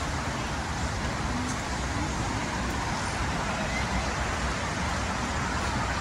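Steady background hum of distant road traffic.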